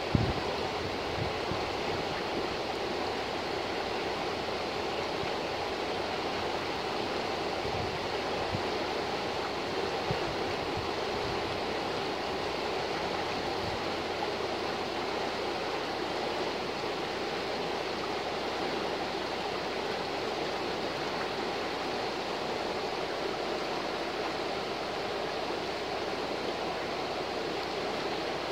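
Shallow river rapids rushing steadily over rocks, an even, unbroken wash of water. There is a short thump right at the start.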